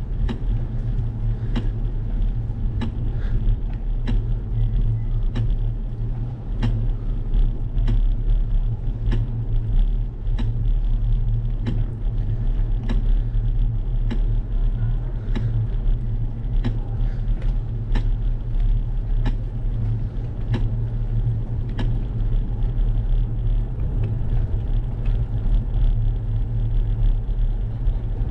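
Bicycle riding along a paved street: a steady low rumble of the ride, with a sharp tick repeating about every second and a quarter.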